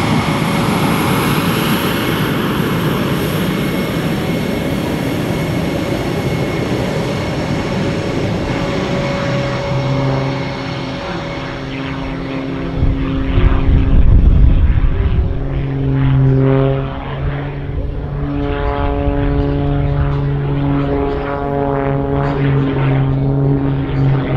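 MXS-RH aerobatic single-engine propeller plane flying a display. A loud rushing drone for the first ten seconds or so gives way to a droning engine-and-propeller tone that shifts in pitch as the plane manoeuvres, with a louder low rumble about halfway through.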